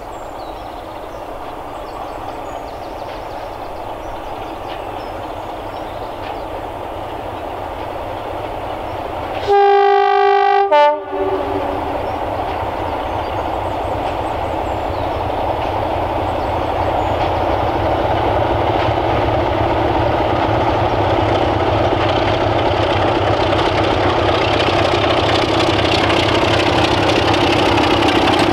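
Diesel locomotives, Class 33 D6515 leading a second engine, approaching, with their engine noise growing steadily louder. About ten seconds in, a loud two-tone horn sounds: a long note followed by a short one.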